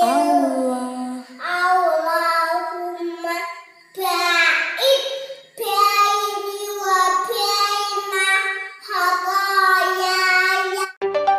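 A small girl's voice chanting prayer recitation in a sing-song melody, in short phrases with held notes and brief pauses between them. Electronic music cuts in near the end.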